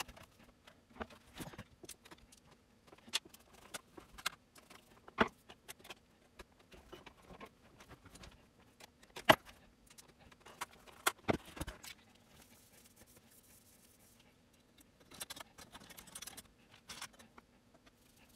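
Screwdriver and small metal parts clicking and clinking against the steel chassis of an AKAI GXC-709D cassette deck during reassembly. The sharp clicks and knocks are scattered irregularly, with the loudest about nine seconds in, a cluster around eleven seconds, and a brief soft rustle shortly after.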